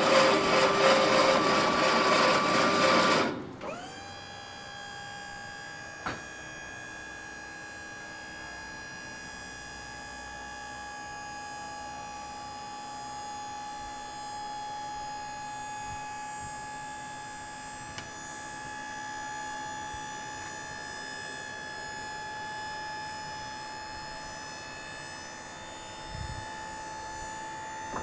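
Switch-N-Go hoist's hydraulic power unit running while the hoist arm lowers a roll-off container onto the truck chassis. It is loud and rough for the first three seconds or so, then settles into a steady whine, with one click about six seconds in.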